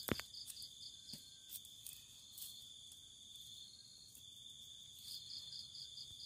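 Crickets trilling steadily at a high pitch, with short runs of quick chirps near the start and near the end. A few faint clicks of a knife cutting through a shallot.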